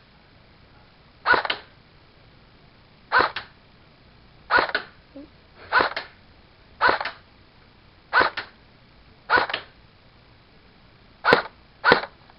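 Airsoft rifle fired on semi-automatic, one trigger pull per shot: about nine single shots at uneven intervals of one to two seconds, the last two closer together. Each shot is a short, sharp crack with a quick double peak.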